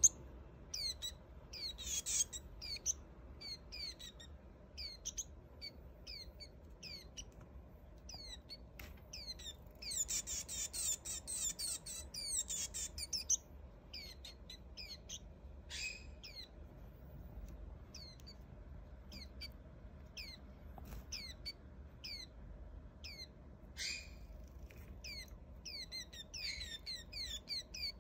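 A young Swinhoe's white-eye giving a rapid string of short, high, falling chirps, begging, with dense bursts about two seconds in, from about ten to thirteen seconds in, and near the end. Two brief sharp clicks come in between.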